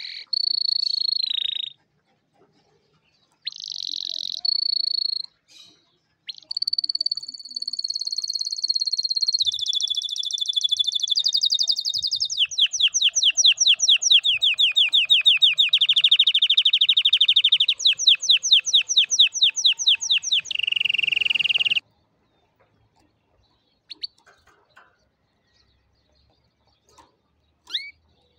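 Domestic canary singing: a few short whistled phrases of held high notes, then a long, fast trill of rapidly repeated notes lasting about eight seconds, ending in a lower buzzy phrase. Only a few faint chirps follow.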